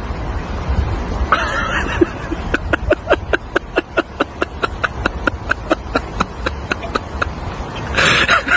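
A dog barking over and over in quick short barks, about three or four a second, starting about two seconds in, over a low steady rumble.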